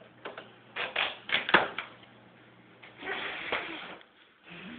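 Cardboard packaging being handled: a quick run of knocks and taps, the loudest about a second and a half in, then rough scraping and rustling about three seconds in and again near the end.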